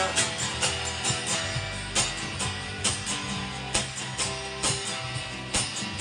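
Instrumental passage of a guitar cover song: guitar playing with a steady beat of about two strokes a second, no singing.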